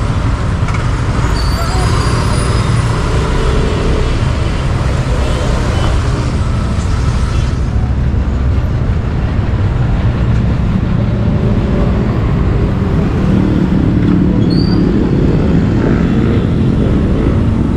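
Steady motor-vehicle engine drone and road noise while riding in heavy city traffic, with a diesel bus running close alongside. The engine note climbs a little over the last few seconds.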